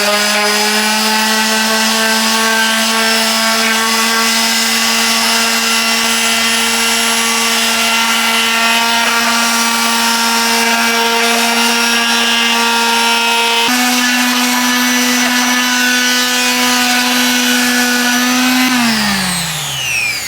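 Ozito corded palm sander running at full speed with a steady high-pitched whirring hum. Its pitch steps up slightly about 14 seconds in, then it is switched off near the end and winds down in a falling whine.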